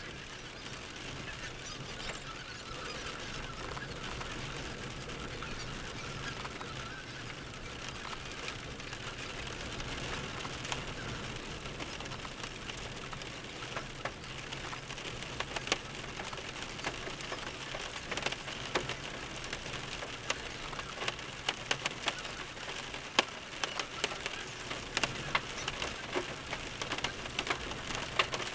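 Distant massed calling of a large feeding flock of red-breasted and greater white-fronted geese, a steady high chatter. A patter of sharp ticks grows more frequent from about halfway and gives the loudest moments.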